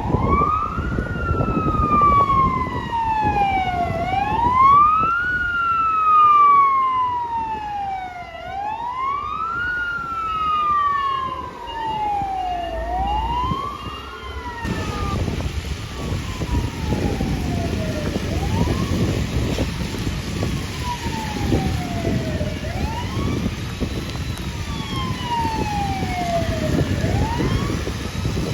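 Fire trucks' electronic sirens wailing: each cycle rises quickly and falls slowly, repeating about every four seconds, over the rumble of truck engines going by. About halfway through, the sound changes to fainter sirens, two of them overlapping out of step, from the next responding trucks.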